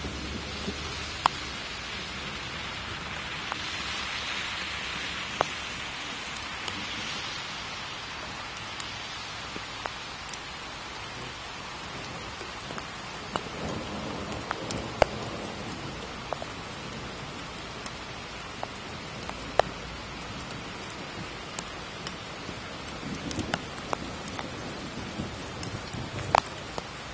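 Steady rain hiss, with sharp single ticks of raindrops striking close by every few seconds.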